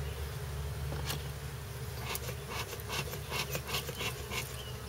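Honeybees buzzing in a steady hum at an open, crowded hive. About halfway in, a run of light scraping clicks joins it for a couple of seconds.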